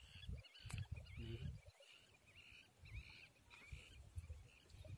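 Faint bird chirps repeating about twice a second, each a quick swooping note, over a low uneven rumble.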